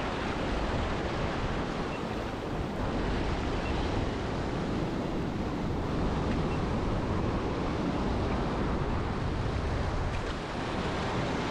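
Ocean surf washing steadily against the rocky shore, with wind noise on the microphone.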